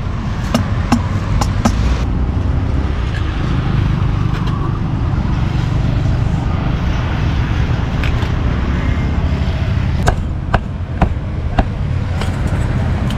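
Street ambience with a steady rumble of traffic, and a cleaver now and then knocking sharply on a chopping board as grilled pork is chopped: a few strikes at the start and a quick cluster near the end.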